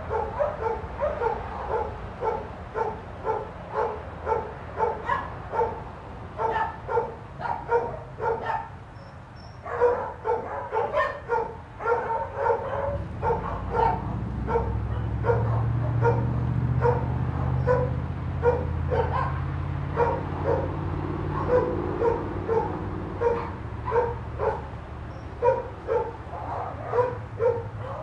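A dog barking repeatedly off to the side, about two barks a second, pausing briefly around nine seconds in. A low rumble swells up under the barking in the middle and fades again.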